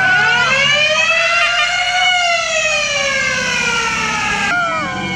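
Siren of a passing 1971 Volkswagen Type 2 bay-window ambulance, wailing in one long rise in pitch followed by a slow fall.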